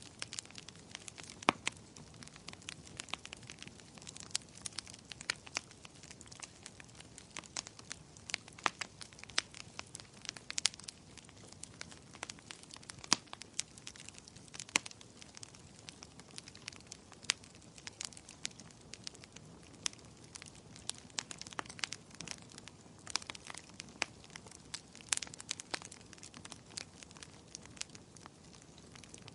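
Firewood burning in a fireplace: a steady stream of irregular sharp crackles and pops over a soft hiss of flames.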